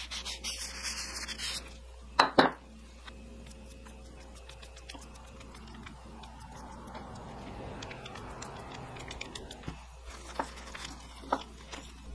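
Cloth rag rubbing over a stained wooden tool handle, wiping off excess stain. Two sharp knocks come about two seconds in. Then a long stretch of quieter brushing and handling, with a couple of light taps near the end.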